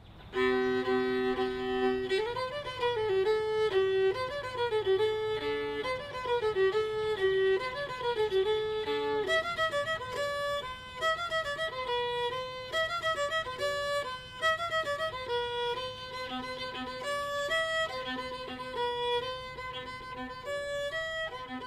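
Fiddle music: a lively tune that opens with two notes held together for about two seconds, then moves into a quick melody.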